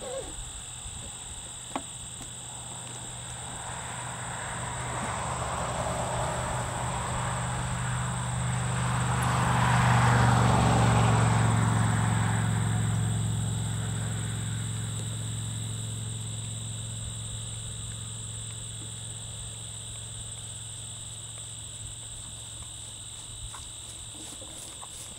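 A steady chorus of insects chirping, with a road vehicle passing: its engine and tyre noise build to loudest about ten seconds in, then fade away.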